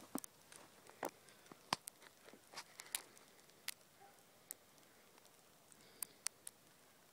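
Faint footsteps crunching on a thin layer of fresh snow: irregular sharp crunching clicks, busy for the first three seconds, then only a few scattered ones.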